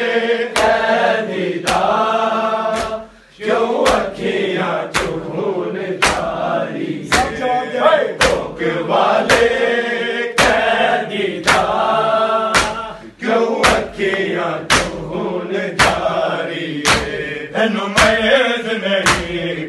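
Men's voices chanting a Punjabi noha in a mourning rhythm, cut through by loud, evenly timed slaps of hands on bare chests (matam), about three every two seconds. The chanting and slapping drop out briefly about three seconds in.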